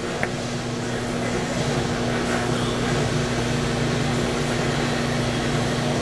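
Steady industrial machine hum and fan-like whir with a constant low tone, from a running microwave tempering oven line with its transmitters powered on and the conveyor moving.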